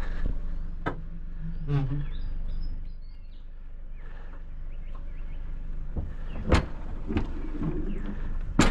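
A low, steady engine hum, with a few sharp knocks and faint bird chirps.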